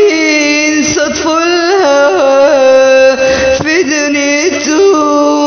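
Arabic-style music with no words: a single ornamented melody line that holds notes and moves in small stepping turns and slides.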